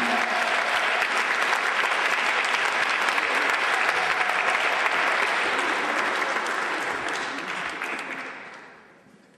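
Congregation clapping and applauding, dying away over the last two seconds.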